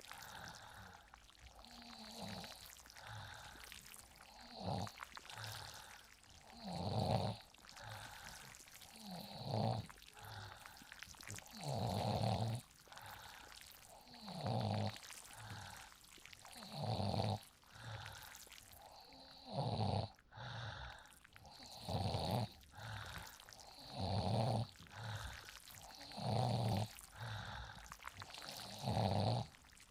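A sleeping person snoring in a regular rhythm, one deep rattling snore about every two and a half seconds.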